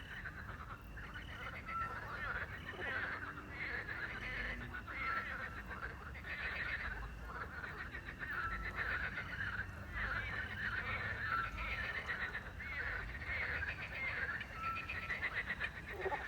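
Night chorus of frogs croaking and crickets chirping, with a small owl's short whistled note repeating every couple of seconds.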